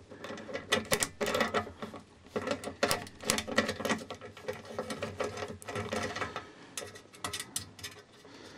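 Hand ratcheting driver with a 7 mm socket clicking rapidly in short runs as it backs a nut off a threaded earth stud. The clicking thins out near the end as the nut comes loose.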